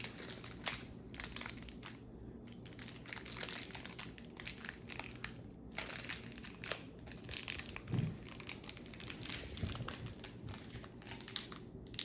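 Plastic packaging crinkling and crackling irregularly as it is handled and pulled open by hand.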